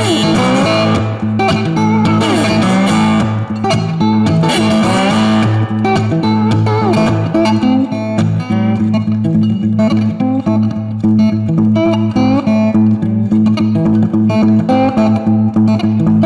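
Background music of electric guitar over a steady bass line, with quick note runs and bent notes.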